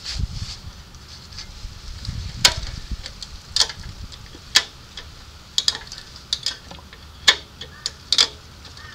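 About ten sharp, irregular clicks spaced roughly a second apart, beginning a couple of seconds in, with a low rumble in the first few seconds.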